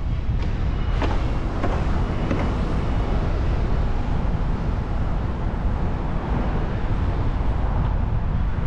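City street noise from a moving bicycle: a steady low rumble of wind on the microphone and road noise, with traffic going by and a few light clicks in the first seconds.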